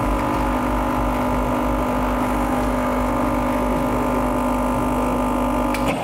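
Rocket Espresso Stone espresso machine's pump running steadily while a shot is pulled, a steady hum with several even tones, cutting off with a click near the end as the shot is stopped.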